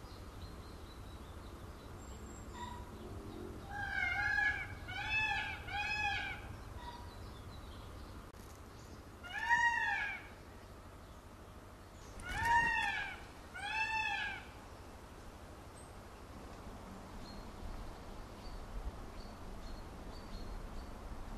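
Indian peafowl (peacock) calling: six loud calls, each rising then falling in pitch. There is a quick run of three about four seconds in, a single call near the middle, and two more a little later.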